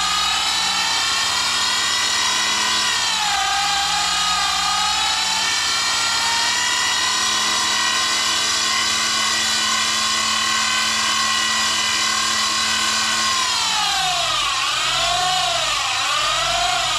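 Levin 8mm jeweler's lathe running on its variable-speed Hamilton Beach motor while turning a tiny pin: a steady, high motor whine with many overtones. The pitch sags briefly about three seconds in and swoops down and back up several times near the end.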